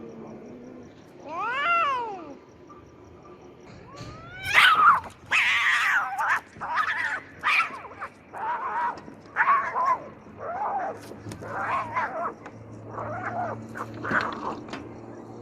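Angry cats caterwauling in a fight. One drawn-out yowl rises and falls about two seconds in. From about four seconds there is a string of loud, harsh yowls and screeches, loudest at first, which taper off near the end.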